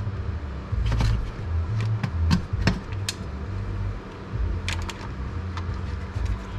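Steady low hum of cooling fans from the running mining rigs, with a scattering of light clicks and taps over it.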